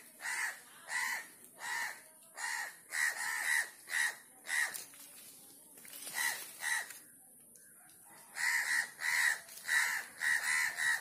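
A crow cawing over and over: short harsh calls about two a second, in runs broken by two pauses of a second or two midway.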